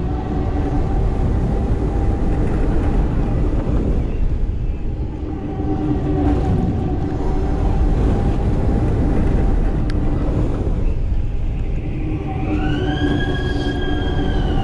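Fabbri Booster thrill ride spinning, its drive hum swelling and fading in a repeating cycle over a heavy low rumble of rushing air on the microphone. Near the end a high tone rises, holds and falls away.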